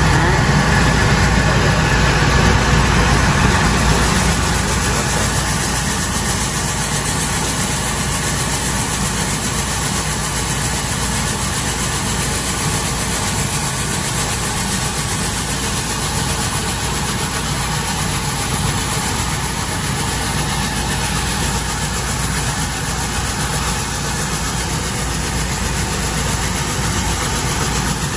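Coin-operated rice milling machine running: a steady motor drone with milled rice grains pouring down the stainless-steel outlet chute. It is a little louder for the first few seconds, then holds steady.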